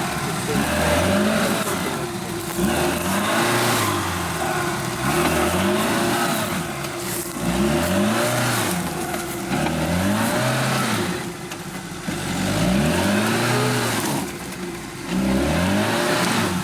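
Off-road 4x4's engine revved hard and let fall again and again, about once every second or so, the throttle worked in pulses while driving through an obstacle.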